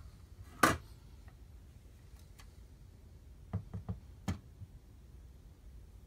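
Wood fire in a fireplace crackling: one sharp, loud pop about half a second in, then a quick run of four smaller cracks a little past halfway, over a low steady hiss.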